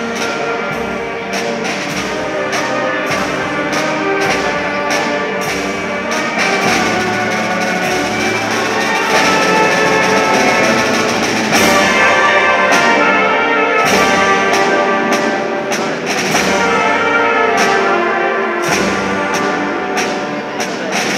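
A brass band playing a Holy Week processional march: trumpets and trombones holding chords over a steady, evenly spaced drum beat.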